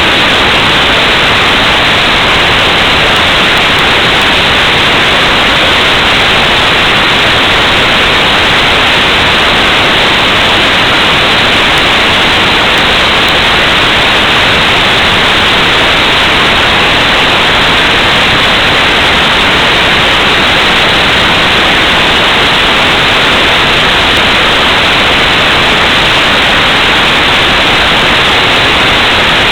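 Loud, steady static hiss with no change and no other sound: the hiss recorded after the drone's landing.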